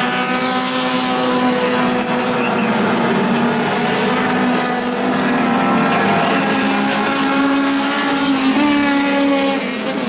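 Several four-cylinder dirt-track race cars running laps together, their engines revving up and down as they pass through the turns, several engine notes overlapping and shifting in pitch.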